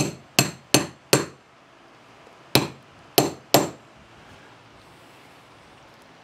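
A hammer tapping a cap onto the end of a metal axle rod: seven sharp strikes, four in quick succession, then three more after a pause of about a second.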